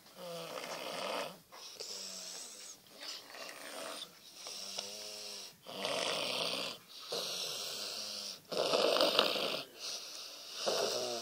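Snoring: about eight breaths, each about a second long, in a steady rhythm with short pauses between, some with a buzzing, rattling tone.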